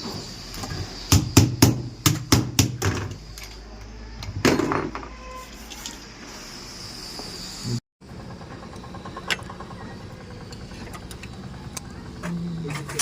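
A quick run of about seven sharp knocks, like tool strikes, during clutch repair work on a Piaggio auto-rickshaw, followed by a louder clunk; after a cut, a low steady hum with occasional clicks.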